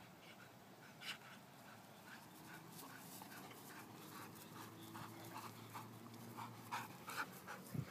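A dog panting quickly and evenly, getting louder toward the end as it comes close.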